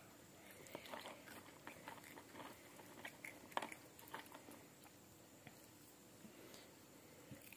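Faint crunching of crispy cheese snack sticks being chewed, with light clicks as a hand rummages among the sticks in a plastic container. One click about three and a half seconds in is a little louder; the sounds thin out over the last couple of seconds.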